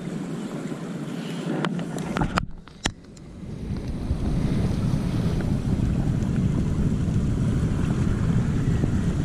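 Wind rumbling on the microphone over ocean surf. A few sharp clicks come about two seconds in, then a brief sudden lull, and the wind rumble returns stronger.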